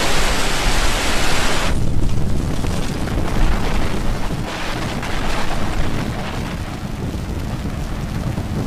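Falcon 9 rocket's nine first-stage Merlin engines during liftoff and climb-out: a loud deep rumble. A broad hiss over it cuts off sharply about two seconds in, leaving the low rumble.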